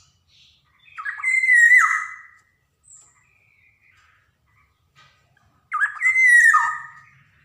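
Black-naped oriole (kepodang emas) giving two loud calls about five seconds apart, each over a second long: a note that slides up, holds, then drops away. Faint short chirps come between the calls.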